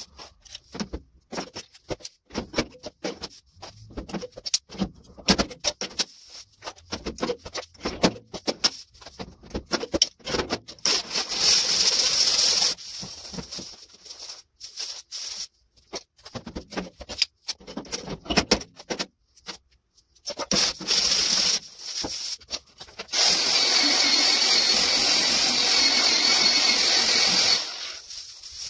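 A hand sliding and pressing over the bare sheet-steel roof of a 1953 Chevy truck cab. It makes a run of short, uneven rubbing strokes and taps, with two longer stretches of steady, hissing rub: one about ten seconds in and one of about four seconds near the end.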